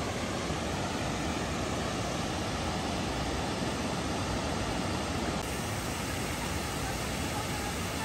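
River water pouring over a stone weir: a steady rushing hiss that drops a little in level about five seconds in.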